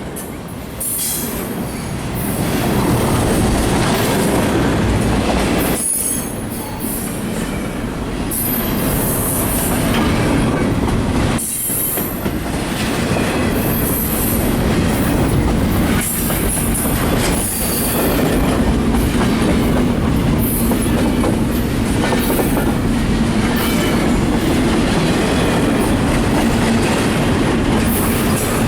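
Freight train rolling past at close range, the cars rumbling steadily over the rails, with intermittent high-pitched squeal from the wheels.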